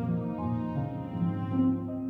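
Instrumental background music with held notes that change about every half second.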